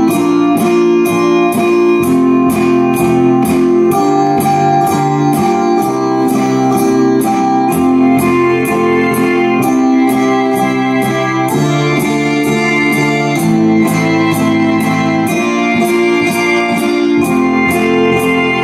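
Electronic ensemble music played on tablets: held chords in plucked-guitar-like and keyboard-like tones that change every second or so, over a steady ticking beat.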